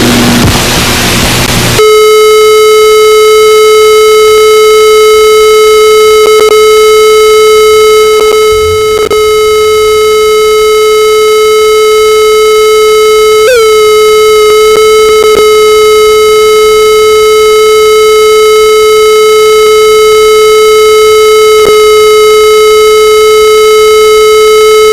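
Television test tone over the station's test pattern: one steady, slightly buzzy tone held unbroken, with a brief wobble in pitch about halfway through. It comes in after about two seconds of loud hiss.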